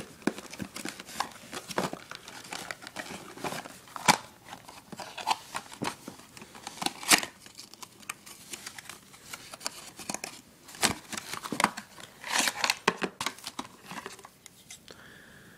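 Hands handling tablet packaging and accessories: irregular rustling and crinkling with small clicks and taps, a sharper tap about four seconds in and a busier stretch of rustling near the end.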